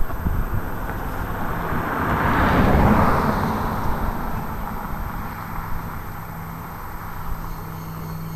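A vehicle passing by: a broad rushing noise that builds to its loudest about three seconds in and then fades away, over a low steady hum.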